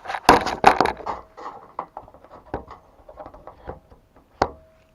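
Clicks and knocks of multimeter test leads and clips being handled and attached to a furnace inducer capacitor, loudest in the first second, then lighter clicking. Near the end comes one sharp click, followed by a short steady beep.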